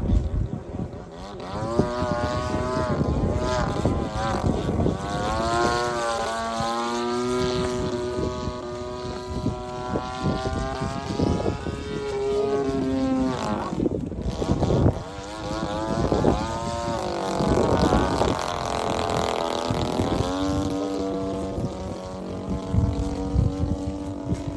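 30cc two-stroke gasoline engine and propeller of a 73-inch Extra 300 RC aerobatic plane in flight, its drone rising and falling in pitch as the plane passes and the throttle changes.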